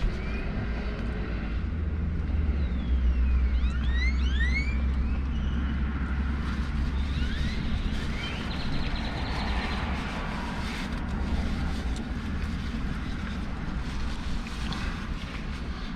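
Steady low rumble of road traffic and wind around a parked car, with a few quick high chirps about four seconds in.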